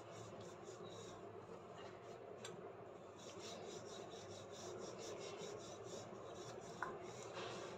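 Wooden rolling pin rolled back and forth over a folded, stuffed paratha on a flour-dusted board: a faint, soft rubbing in quick repeated strokes. A single sharp click about two and a half seconds in.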